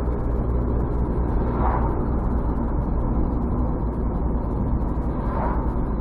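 Steady engine and tyre noise of a car driving at about 60 km/h, heard from inside the cabin. Brief swells come about two seconds in and again near the end.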